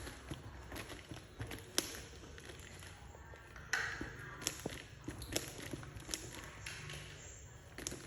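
Pieces of a toy cooking set being handled: irregular light taps and clicks, with a few sharper knocks, about 1.8 s and 3.7 s in the loudest.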